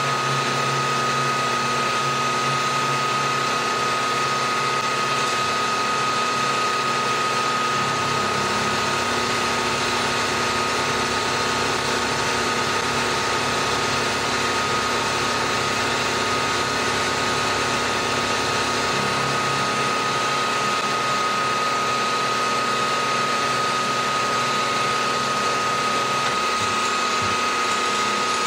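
Milling machine spindle running a 1.5-inch indexable face mill across an aluminium block: a continuous cutting noise with a steady high whine, holding an even level throughout.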